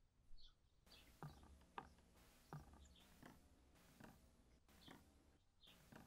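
Near silence broken by faint, soft taps and clicks from a spatula and tweezers working cold-process soap batter in a loaf mould, about one every second.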